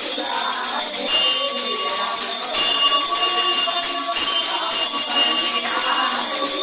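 Temple bells ringing continuously during aarti worship, a steady metallic ringing with repeated strikes.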